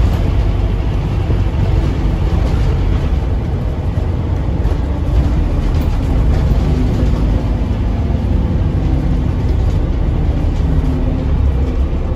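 Scania OmniCity single-deck bus heard from inside the passenger saloon while under way: steady engine drone and road noise, with no marked revving or gear change.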